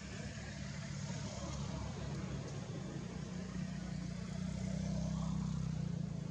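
A motor vehicle's engine running steadily, a low hum that grows a little louder about halfway through.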